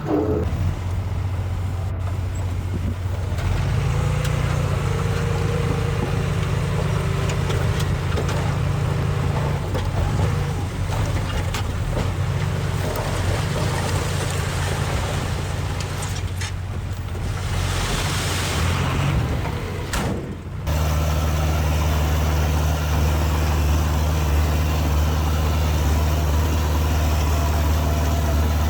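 Heavy diesel engine of earthmoving machinery running steadily. A hiss of about a second and a half comes after the middle. About two-thirds of the way through, the sound cuts abruptly to a louder, steadier engine note.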